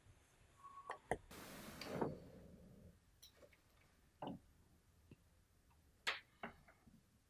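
Laptop keyboard and mouse clicks: a few scattered light clicks and taps about a second or two apart, with a short stretch of hiss and a thump about two seconds in.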